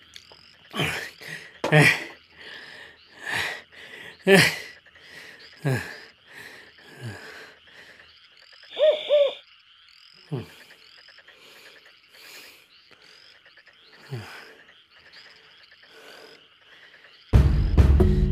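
Night-time ambience: a steady chorus of insects and frogs, over which comes a string of short calls that fall steeply in pitch, roughly one a second, and a double hoot about halfway through. Music comes in loudly near the end.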